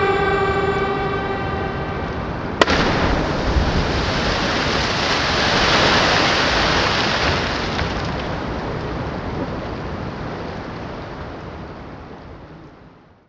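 A cliff jumper's splash into a river pool: a long rushing water splash that swells and then slowly fades away. It follows a sharp click a little over two seconds in, where sustained music tones stop.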